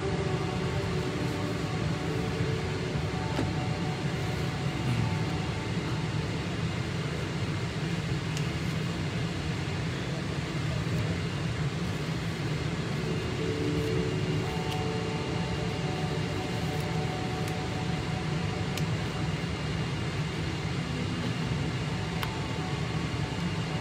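Steady low rumble of an airliner cabin heard from a passenger seat, the even hum of the aircraft's air and engine noise.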